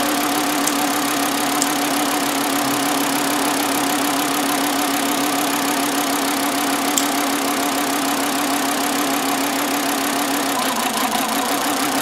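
2009 Volkswagen Jetta's 2.5-litre inline five-cylinder idling rough with a severe misfire, cylinder number one not contributing, with a few light clicks. Near the end the idle note dips as another ignition coil is unplugged in a cylinder drop test, showing that cylinder is contributing.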